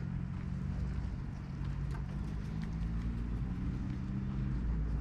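A motor vehicle's engine running with a steady low hum over a rumble, which stops near the end.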